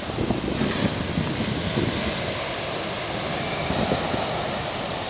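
Wind gusting over the microphone, with a steady hiss of breaking surf behind it.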